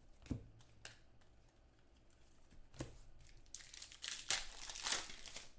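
Trading-card pack wrappers being torn open and crinkled by hand, with scattered crackles at first and a busier run of tearing and crinkling from about three and a half seconds in.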